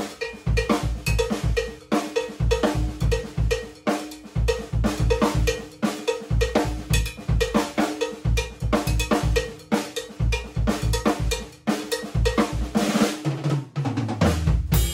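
Drum kit playing a linear groove with the hi-hat part moved onto a cowbell mounted on the bass drum: a busy run of ringing cowbell strikes between bass drum and snare hits. A cymbal crash comes near the end and rings on.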